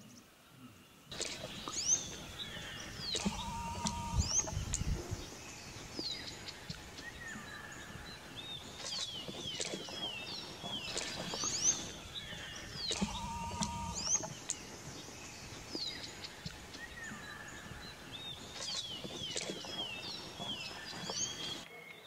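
Songbirds singing in forest: overlapping high whistled phrases of quick falling notes, repeated every few seconds, with now and then a lower call. The singing starts about a second in.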